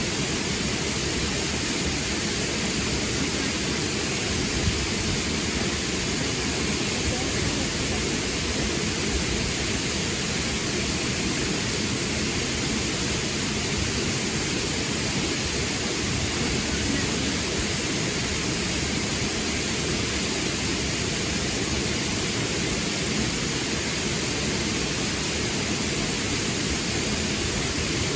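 A river rushing steadily, an even wash of flowing water.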